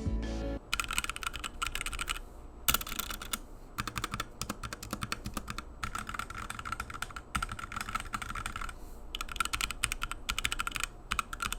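Fast typing on a HyperX Alloy Origins Core TKL mechanical keyboard with HyperX Red linear switches: a dense run of keystroke clacks, broken by two short pauses.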